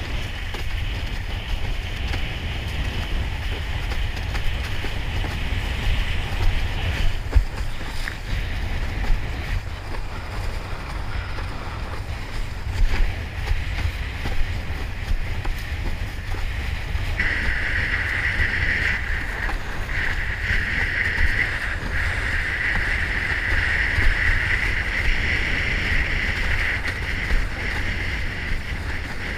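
Wind buffeting the camera microphone in a steady low rumble while a windsurf board planes over chop, with the hiss of water rushing past the hull growing stronger a little past halfway and occasional slaps as it hits waves.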